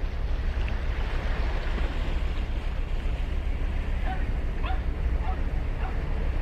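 Ocean surf breaking and washing up the beach, with a steady low wind rumble on the microphone. A few faint short calls show up about two-thirds of the way through.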